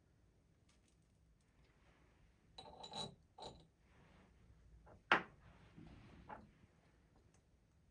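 Glassware and dishes handled and set down on a hard surface: a few light clinks about three seconds in, one with a brief ringing tone, then a sharper knock about five seconds in and a softer one after it.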